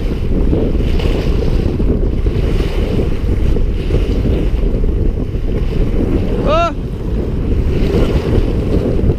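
Wind buffeting the microphone as a steady low rumble, with small waves washing and breaking over the rocks in a pulsing hiss. A brief squeak about two-thirds of the way in.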